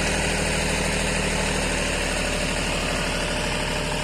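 Diesel tractor engine idling steadily with a low, even chugging.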